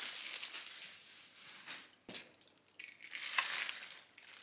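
Plastic wrapping and cardboard packaging rustling and crinkling as parts are unpacked from a box, with a single sharp click about two seconds in.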